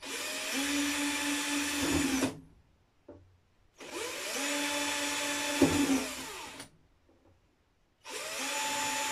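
Cordless drill boring small holes in a clear plastic terrarium lid, run in three short bursts of two to three seconds each. The motor whine rises as it spins up and falls away as it stops, with quiet gaps between; the third burst starts near the end.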